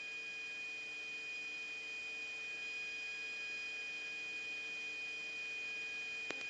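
Faint steady electronic tone and hum over light hiss, with one short click near the end.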